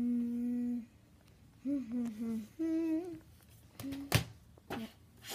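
A boy humming a few notes with his mouth closed: a long steady note, a short falling phrase, then a higher wavering note. Two sharp clicks follow, the first of them the loudest sound here.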